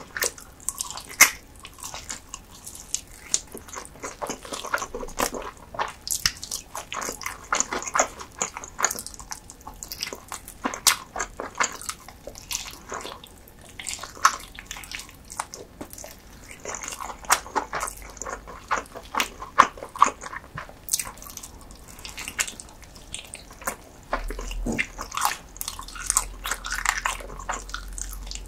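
Close-miked eating sounds: a person biting and chewing, with many wet mouth clicks and smacks following each other irregularly.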